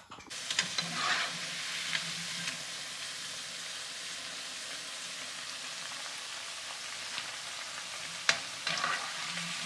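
Batter-coated cauliflower florets deep-frying in hot oil, their first fry on medium flame: a steady sizzle that swells about a second in and again near the end as more pieces go in. A few sharp clicks sound over it, the loudest near the end.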